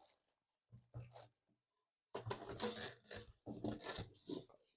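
Packaging being handled: a couple of soft knocks, then from about halfway in an irregular rustling, rubbing and crinkling as the AIO cooler is taken out of its wrapping.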